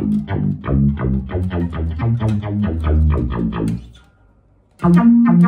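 Electric bass guitar played straight into a Xiaomi Mi Portable Bluetooth Speaker's aux input with no effects, the speaker serving as a bass amp. A quick run of plucked low notes breaks off for under a second, then a few more notes start again near the end, the last one held.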